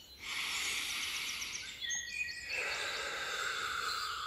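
A rushing noise in two long stretches, the second one lower, with birds singing over it: a fast trill early on and a few short whistled notes about halfway through.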